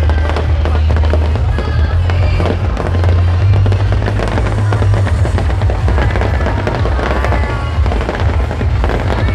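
Fireworks going off in rapid succession: a dense, continuous crackling of many small bursts.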